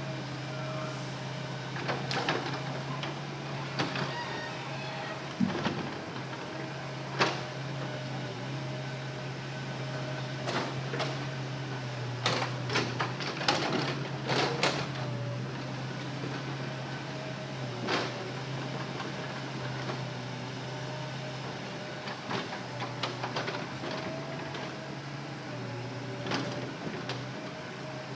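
Hitachi Zaxis excavator running steadily with a low engine hum and a wavering hydraulic whine, broken by scattered sharp clicks and knocks that bunch together about halfway through.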